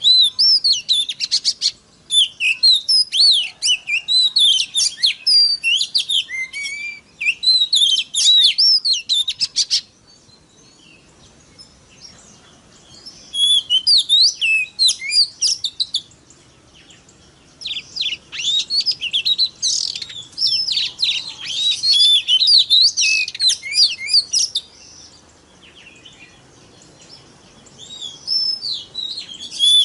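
Oriental magpie-robin (kacer) singing loud, fast phrases of varied whistles and chattering notes. The song comes in bursts several seconds long, broken by short pauses.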